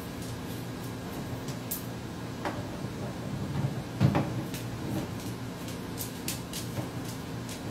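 Scarlet macaw working at the hinged plastic lid of a pet-food bin with its beak: a few plastic knocks, the loudest about four seconds in, then light clicks near the end, over a steady low hum.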